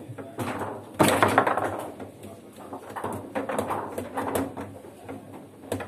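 Foosball table in play: a quick run of hard clacks and knocks as the plastic player figures strike the ball and the ball and rods bang about the table. The hardest hits come about a second in.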